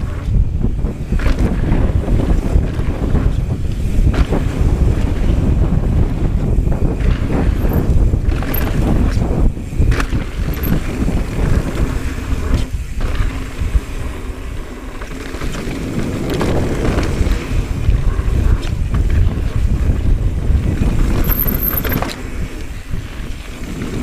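Wind buffeting the microphone of a rider moving fast on a 2019 Transition Smuggler 29er trail bike, a continuous loud rush, with scattered sharp knocks and rattles from the bike over the trail.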